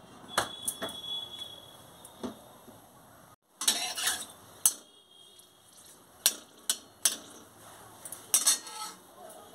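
Metal spatula clinking and scraping against a metal kadai in irregular, sharp strokes as a dried red chilli is stirred in hot oil.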